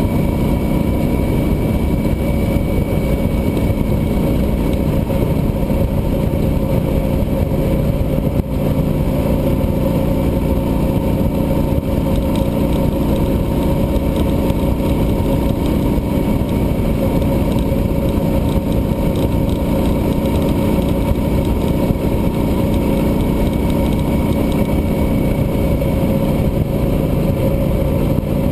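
Cruiser motorcycle's engine running steadily at highway cruising speed, mixed with a dense low rumble of road and wind noise, with no revving or gear changes.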